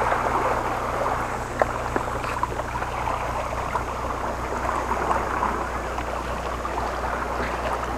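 Seawater lapping and sloshing against shoreline rocks, with small scattered splashes, over a steady low rumble.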